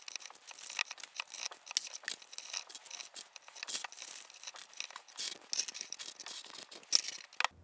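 Paper banknotes rustling and crinkling as they are handled and pushed through the slot of a 3D-printed plastic coin bank, a continuous patter of small rustles. A few sharper clicks come near the end.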